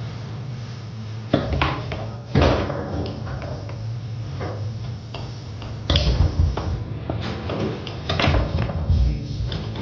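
Foosball in play on a Tornado table: the ball struck by the men and knocking against the table, a run of sharp knocks with a quick flurry about six seconds in, over a steady low hum.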